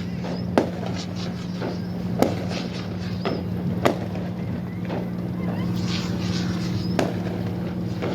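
Fireworks going off: four loud sharp bangs a second or more apart, with several fainter pops between them, over a steady low hum and crowd chatter.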